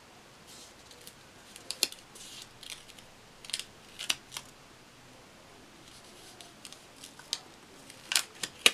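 Stickers being handled and pressed onto a paper planner page: scattered short paper crinkles, rustles and small taps at irregular moments, with a cluster of louder ones near the end.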